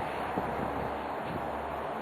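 Steady wind noise on the microphone, with a low, even rumble underneath.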